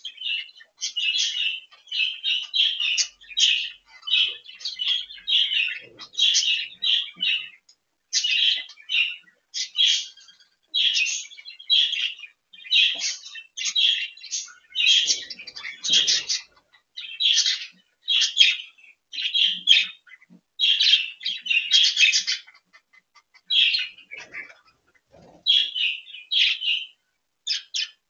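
Budgerigars chattering: rapid chirping and warbling calls in quick bursts with short pauses, going on almost without a break.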